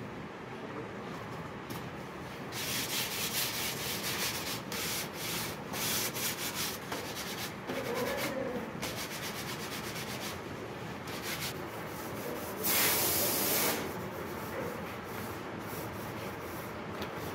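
Hand-rubbing and smoothing of an unfired cast ceramic sanitaryware piece: a run of quick scraping strokes over the clay surface, with one louder hiss lasting about a second past the middle.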